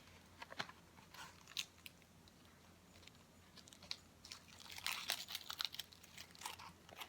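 Scissors cutting through cardboard in short, crisp snips: a few scattered cuts at first, then a quicker run of snips from about halfway through.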